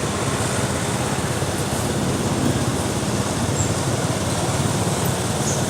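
Steady road traffic noise: vehicle engines running.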